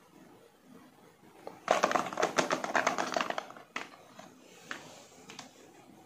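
Hollow plastic toy balls clattering and rattling against each other and a plastic toy bathtub as a toy figure is pushed among them, a dense rattle for about a second and a half, then a few single clicks.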